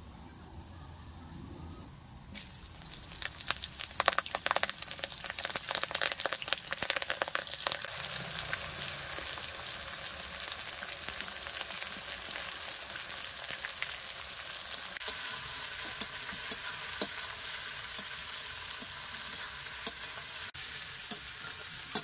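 Whole spices in hot oil in an aluminium kadai crackling with scattered sharp pops, then sliced red onions frying with a steady sizzle from about eight seconds in. Near the end a metal spatula stirs them, with a few clicks.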